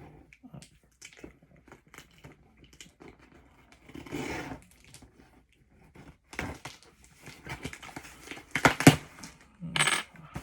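Cardboard shipping box and its packaging being handled and opened: scattered light taps and rustles, a short tearing rasp about four seconds in, then busier crinkling, tearing and sharp knocks in the second half.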